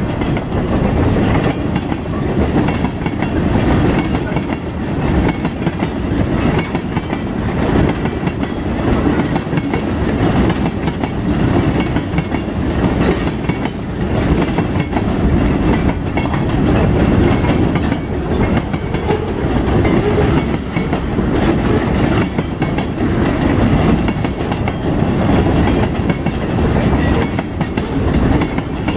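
A freight train's boxcars and tank cars rolling past, a steady heavy rumble with the steel wheels clattering on the rails.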